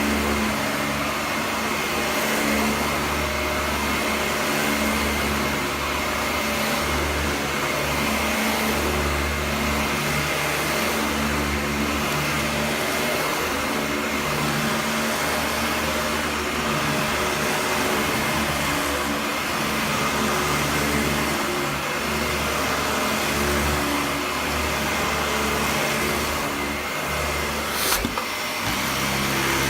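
Dyson DC41 Mk2 upright vacuum cleaner running steadily, with a steady whine over its rushing air. A single sharp click sounds near the end.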